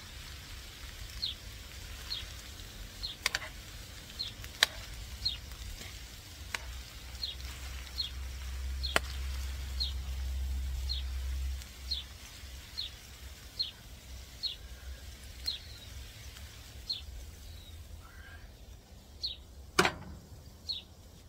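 A bird repeating a short, high, falling chirp about once every three-quarters of a second, with a few sharp clicks of metal tongs against the frying pan, the loudest near the end. A low rumble runs for a few seconds in the middle.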